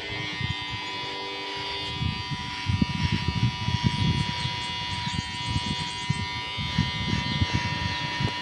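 Cordless electric hair clipper running with a steady buzz as it cuts hair, with irregular crackling from about two seconds in.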